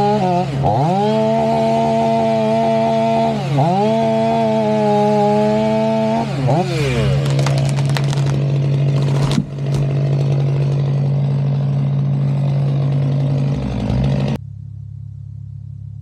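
Stihl MS 500i fuel-injected two-stroke chainsaw cutting at full revs through a tree trunk, its pitch dipping and recovering three times. The saw then winds down, and the tree cracks and crashes to the ground about nine seconds in.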